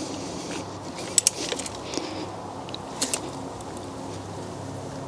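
A steady low mechanical hum, with a few quick ratchet clicks from a torque wrench tightening an engine mount nut, heard about a second in and again about three seconds in.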